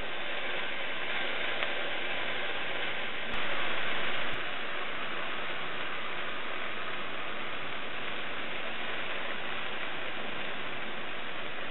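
Baby eggplant pieces shallow-frying in oil in a nonstick pan: a steady sizzling hiss, louder for about a second a few seconds in.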